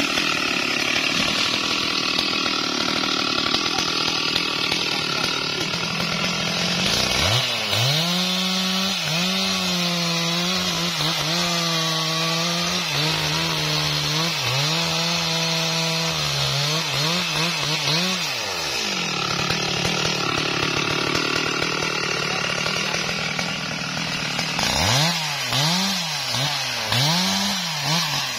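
Stihl MS 382 two-stroke chainsaw cutting through a wadang trunk at full throttle. Partway through it drops to a lower, wavering running with the revs rising and falling for about ten seconds, then cuts steadily again and ends with a few short blips of the throttle.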